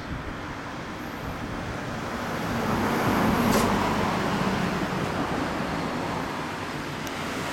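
A road vehicle passing by in traffic, swelling to its loudest about halfway through and then slowly fading.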